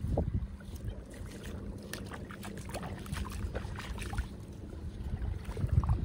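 Small ripples lapping and splashing lightly at the sand edge of calm, shallow water, with a low rumble on the microphone that swells near the start and again near the end.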